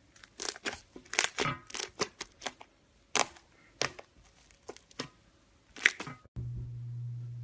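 Crunchy iceberg slime crackling as its hardened crust is pressed and broken, a quick irregular series of sharp crackles and crunches. About six seconds in it cuts off abruptly and a steady low hum takes over.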